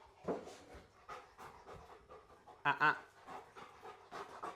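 Dog panting after toy play, short quick breaths about three a second. About three seconds in there is one brief pitched vocal sound.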